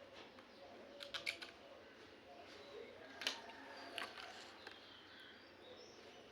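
Faint small clicks and taps: a quick cluster about a second in, then single ones about three and four seconds in, over birds chirping in the background.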